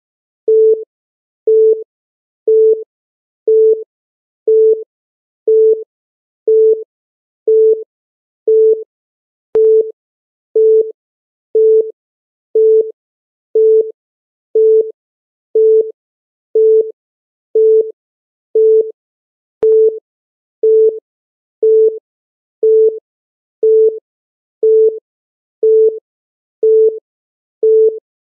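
Short electronic beep of one steady pitch, repeating about once a second: a countdown timer's beep ticking off each second.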